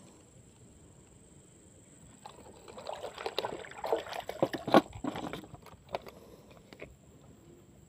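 Close rustling and a run of small clicks as hands work a fishing hook lodged through denim jeans at the knee. The sound is busiest from about two to five seconds in, with one sharper click near the middle and a few lone clicks after.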